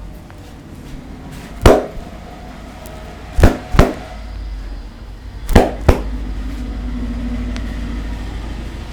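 Five sharp hand slaps from a barber's massage, one then two quick pairs, over a low steady rumble.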